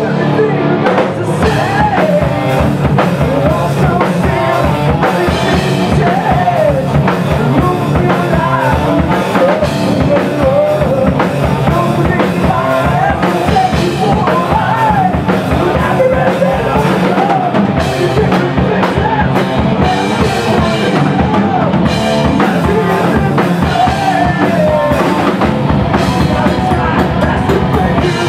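Live rock band playing loud and steady: electric guitar through a Marshall amp, bass guitar and a drum kit keeping a driving beat.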